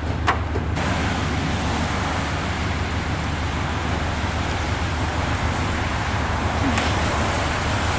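Steady road noise and engine rumble inside a moving car.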